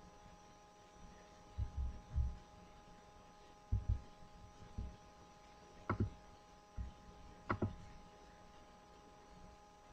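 Handling noise on a computer's microphone: about eight soft low thumps spread over several seconds, two of them with a sharper click, over a faint steady electrical whine.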